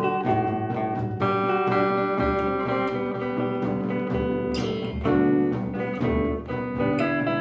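Improvised music led by plucked guitar, with notes and chords picked and strummed in a running melodic line.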